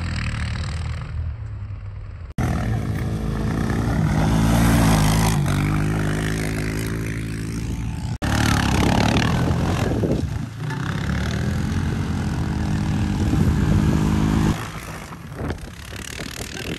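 ATV engines revving hard while being ridden through snow. The engine note climbs and falls repeatedly with the throttle and breaks off abruptly twice as one stretch of riding gives way to another.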